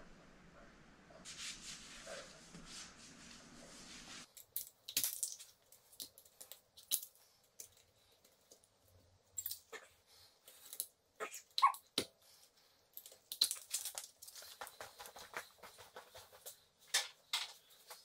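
Faint, scattered light clicks, taps and clinks of hand work on a car wheel, tools and wheel hardware being handled. A low steady hum underlies the first four seconds and stops abruptly.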